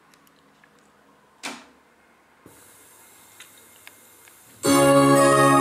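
Philips AH-621 stereo receiver being tuned across the FM band: the audio stays muted, with a faint hiss, a few light ticks and one brief click. Near the end a station's organ music cuts in abruptly and loud.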